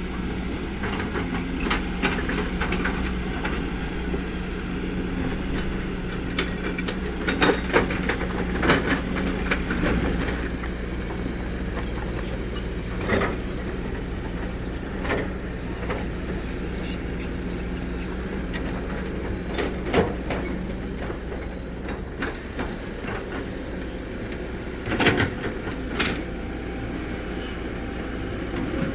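Kobelco SK200 hydraulic excavator's diesel engine running steadily under working load, with scattered metal clanks and knocks as it digs and loads soil: a cluster about eight seconds in, single knocks later, and a pair near the end.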